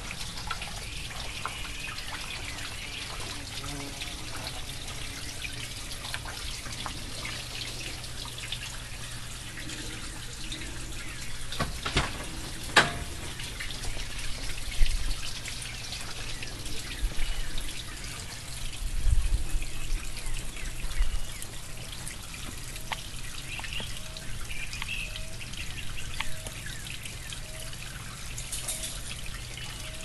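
Water steadily trickling and dripping into a garden pond, with a few sharp clicks about halfway through and some low thumps just after.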